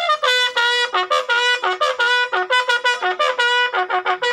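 Military bugle call at a soldier's burial: a fast run of short notes jumping between a few pitches, starting suddenly.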